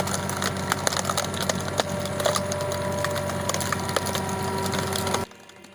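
A wood-processing machine running with a steady hum while wood cracks and splinters in it in many sharp snaps; the sound cuts off abruptly about five seconds in.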